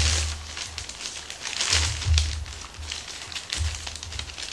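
Thin plastic carrier bag rustling and crinkling in irregular bursts as it is handled and its handles gathered up, with a few dull low bumps.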